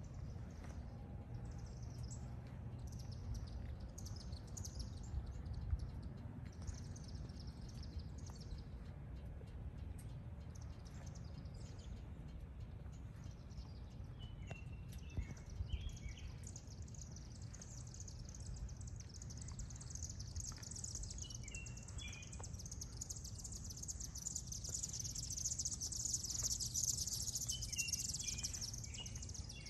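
Outdoor ambience: small birds chirping on and off over a low steady rumble. A high hiss swells in the second half.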